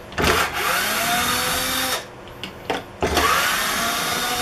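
Power drill-driver run twice, about a second apart, each time winding up in pitch and then holding steady for roughly two seconds, backing screws out to take apart a wooden table saw jig.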